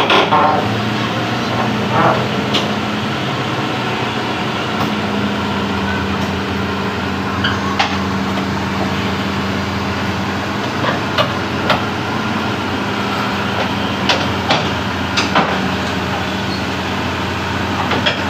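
Hitachi Zaxis excavator's diesel engine running steadily, with a dozen or so sharp clanks and knocks scattered through it as the machine is loaded onto a steel flatbed truck deck.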